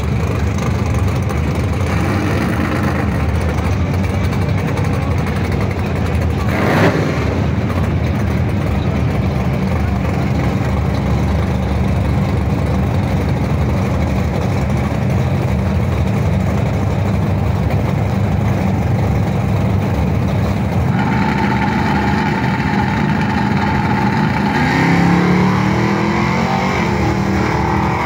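A drag-race sedan's engine running steadily at the starting line, then revving with a rising pitch as the car launches away near the end. A brief sharp crack about a quarter of the way in.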